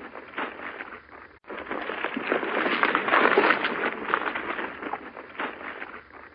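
Giraffe sound effect: a noisy, breathy rasp flecked with small clicks, with no clear pitch. It swells and fades in stretches of about five seconds, breaking off abruptly a little over a second in and again near the end.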